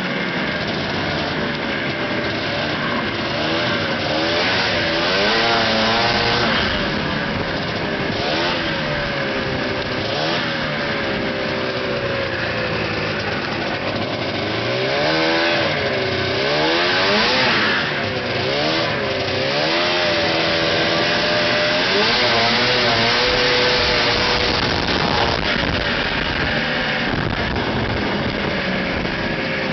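Ski-Doo Blizzard 9500 snowmobile's two-stroke engine running hard, its pitch rising and falling over and over as the throttle is worked.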